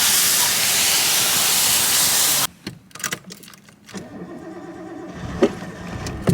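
A loud, steady hiss that cuts off abruptly about two and a half seconds in, followed by a few clicks and then a car engine starting up and running low near the end.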